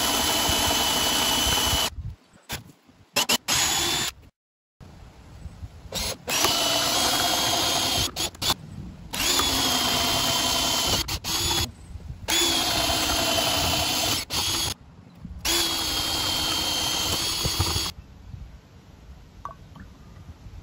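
Power drill boring a spade bit into a wooden 4x4 block. It runs in about five bursts of roughly two seconds each with a steady whine, stopping briefly between them.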